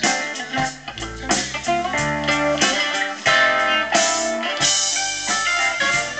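Live blues band playing an instrumental passage, plucked strings to the fore over bass and drums.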